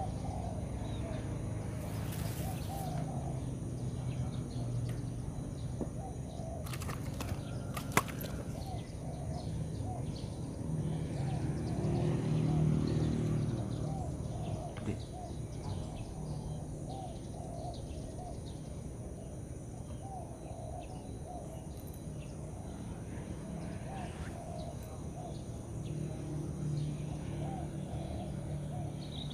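Outdoor ambience: short chirping calls repeating throughout over a steady low rumble that swells for a few seconds midway, with a few sharp clicks early on from handling.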